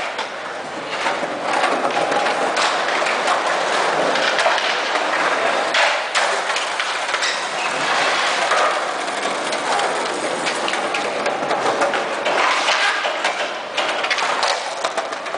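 Skateboard wheels rolling over rough concrete, a continuous gritty rumble, with repeated sharp clacks and knocks of boards hitting the ground.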